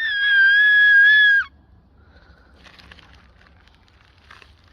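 A young child's long, high-pitched squeal, held steady for about a second and a half before breaking off, followed by a few faint small knocks.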